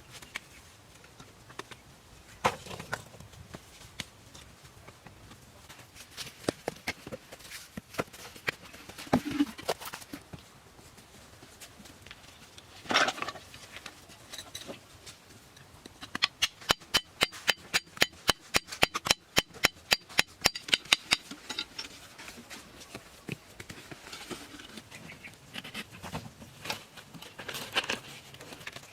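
Scattered sharp knocks, then a fast, even run of about two dozen taps, roughly four or five a second, lasting about five seconds with a faint ring.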